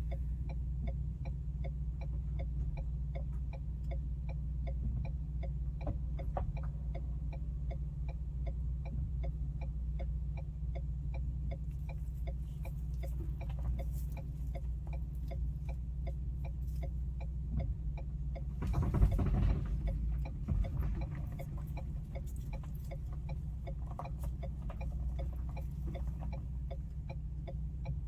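A car's indicator clicking at an even pace over the steady low hum of the idling car, heard inside the cabin, with a brief louder rush about two-thirds of the way in.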